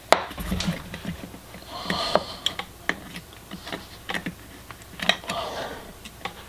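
Hands working a rubber weather boot over the back of a metal H4 headlight housing: scattered sharp clicks and taps with short stretches of rubbing as the rubber is stretched and pushed on.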